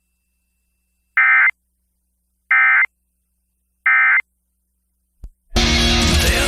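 Emergency Alert System end-of-message signal: three short bursts of SAME digital data tones, about 1.4 s apart, closing the test alert. A click follows, then rock music with electric guitar starts near the end.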